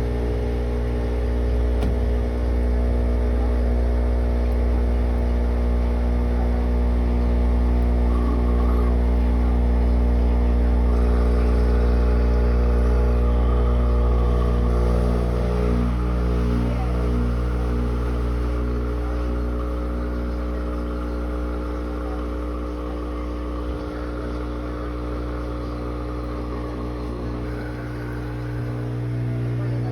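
Brastemp BWK12 12 kg washing machine running with a loud, steady machine drone made of several steady tones. The noise is one the machine is not meant to make. It eases a little after about twenty seconds.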